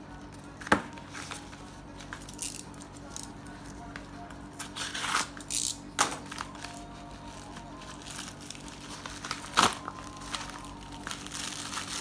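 Plastic packaging crinkling and rustling in short spells while a small parcel and its bagged brass connector are handled, with three sharp clicks that stand out as the loudest sounds. A steady low hum runs underneath.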